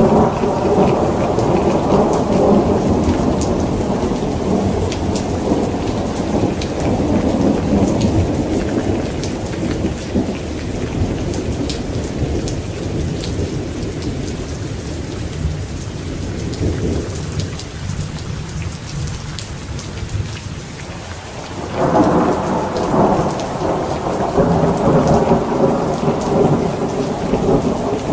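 Thunderstorm: steady rain with rolling thunder. A long low rumble at the start dies away through the middle, and a new thunder roll breaks in suddenly about three quarters of the way through.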